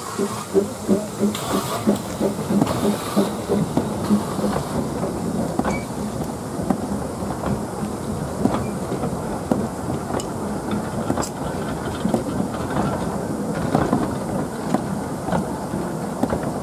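Talyllyn Railway 0-4-0 well-tank steam locomotive Dolgoch pulling away from a standstill, its exhaust beating about two and a half times a second at first. The beats then fade under the rumble of its vintage carriages rolling past, wheels clicking and clanking over the rail joints.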